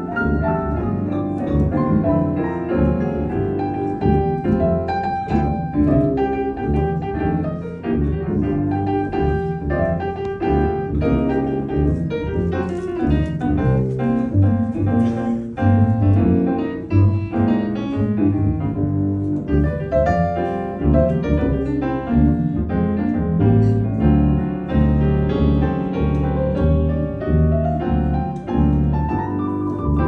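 Live small-group jazz: piano playing over a plucked acoustic double bass.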